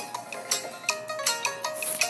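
Instrumental music with a steady beat and short, bright ringing notes struck about twice a second.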